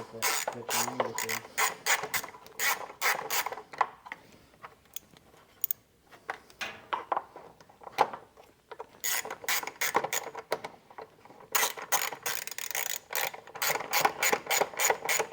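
Hand ratchet wrench clicking in quick runs as a small bolt is turned in, with a sparser stretch in the middle where the clicks thin out.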